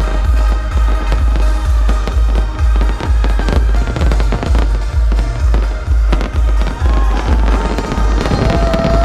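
Fireworks bursting and crackling over loud electronic dance music with a heavy, steady bass beat.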